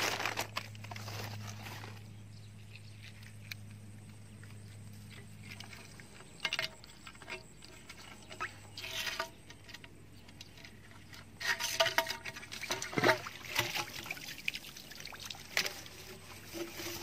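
Water trickling and splashing while an eel trap is handled and set in shallow water, with scattered rustles and clicks that get busier in the second half. A low steady hum fades out about six seconds in.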